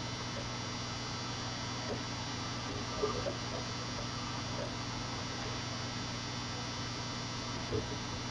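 Steady electrical hum with a faint constant whine over it, broken by a couple of brief soft knocks about three seconds in and near the end.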